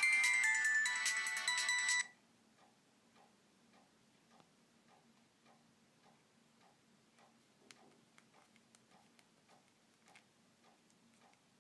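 A short melodic ringtone plays loudly from a Nokia X3-02 phone's speaker and cuts off about two seconds in. Faint, steady ticking follows, about two ticks a second.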